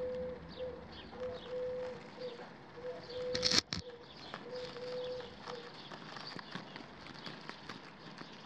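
Outdoor birdsong: repeated short, high, falling chirps over a low steady note that keeps breaking off and starting again, then fades out after about five and a half seconds. A short loud noise cuts in about three and a half seconds in.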